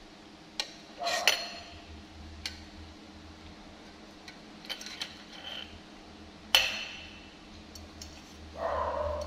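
A metal spoon knocking and clinking against a large metal pot, a string of sharp, scattered clinks, the loudest one about six and a half seconds in. A short whimpering cry near the end.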